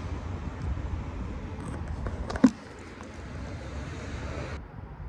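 Steady low rumble of vehicle and outdoor background noise, with a fainter hiss over it that cuts off suddenly near the end. One sharp knock about two and a half seconds in.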